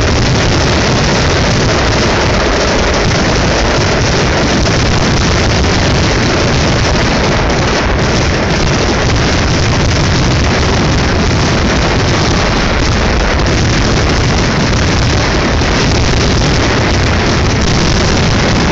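Fireworks finale barrage heard from close beneath: explosions so rapid that they merge into one continuous loud rumble, without separate bangs.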